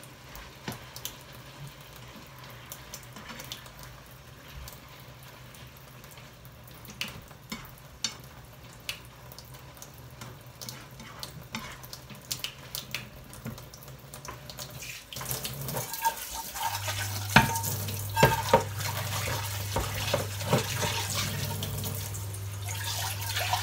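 A spatula stirring and scraping minced pork frying in a non-stick pan, in scattered light clicks over a low hum. About fifteen seconds in, a louder steady rushing hiss with a few sharp knocks and clatters takes over.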